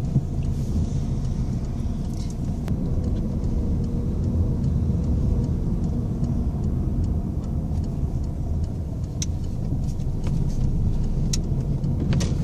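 Steady low rumble of a car's engine and tyres while driving, heard from inside the cabin, with a few faint clicks.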